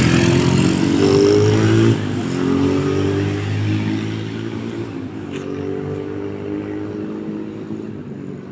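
Motorcycle pulling away: the engine revs up with its pitch climbing for about two seconds, drops suddenly, then runs on while the sound fades steadily with distance.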